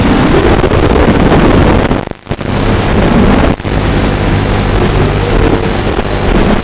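Walkera F210 racing quadcopter's brushless motors and propellers buzzing in flight, the pitch wavering up and down with throttle, mixed with wind rush. The sound drops out briefly about two seconds in and dips again for an instant about three and a half seconds in.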